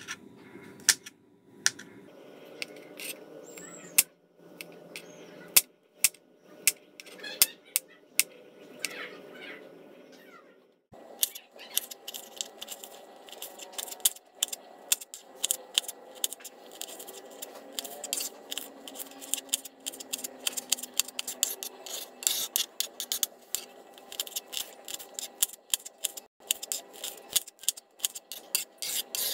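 Kitchen knife chopping on a wooden cutting board: a few separate knocks as beef meatballs are sliced, then, from about eleven seconds in, rapid, steady knocking as chili peppers are sliced finely.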